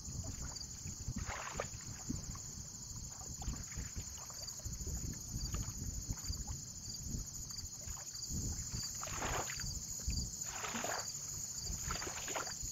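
Small waves lapping at the water's edge, with a few louder splashes, most of them in the last few seconds. Wind rumbles on the microphone, and a steady high insect trill runs behind.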